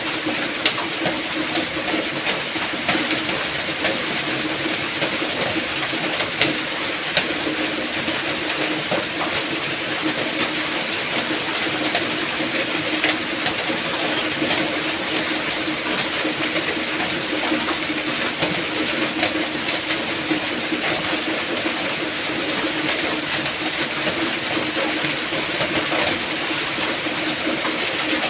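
Steady rain falling: a dense, even hiss with many sharp clicks of individual drops.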